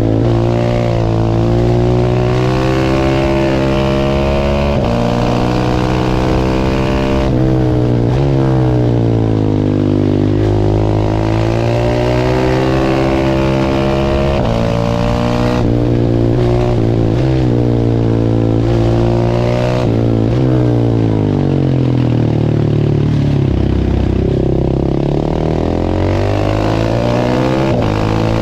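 Large single-cylinder supermoto motorcycle engine under hard riding: revs climb through the gears with a sudden pitch drop at each upshift, then fall away as the bike slows and rise again near the end.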